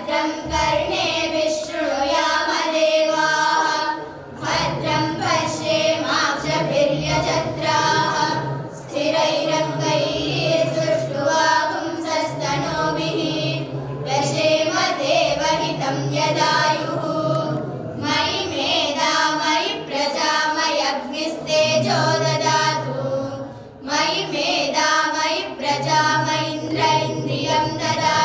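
Group of girls and women chanting Vedic mantras in unison, in phrases held on a few steady pitches with short breaks between them.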